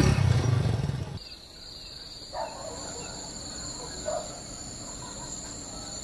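A motorcycle engine runs for about a second as the bike pulls away, then cuts off. After that a steady trilling of crickets at two high pitches carries on, with a couple of faint soft sounds.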